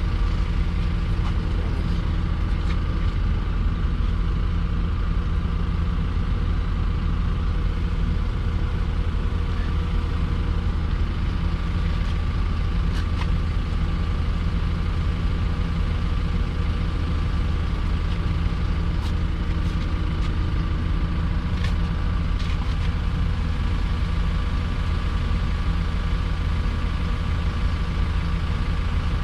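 Yale 175 forklift's diesel engine running steadily at an even speed. It is being warmed up to bring the exhaust aftertreatment up to temperature so the cold NOx sensors will switch on.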